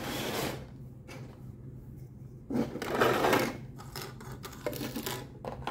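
Hands handling small plastic toy kitchen pieces and packaging: two spells of plastic rustling, one at the start and a louder one about halfway through, then a couple of light plastic clicks near the end, over a faint steady low hum.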